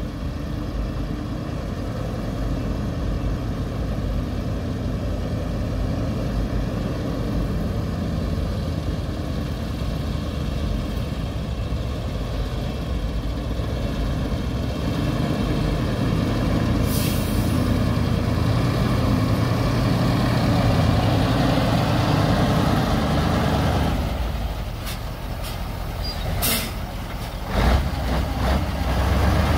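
Heavy diesel earthmoving machinery running steadily under load. There is a short hiss about halfway through, and a few sharp knocks and hisses near the end.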